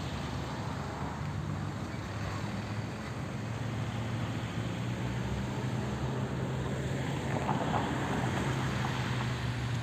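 Car engine hum with road noise while driving, steady throughout.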